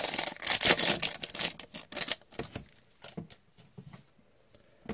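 Trading card pack wrapper torn open and crinkled in gloved hands for about two seconds, a dense crackle of plastic, then a few soft clicks and slides as the cards are drawn out and handled.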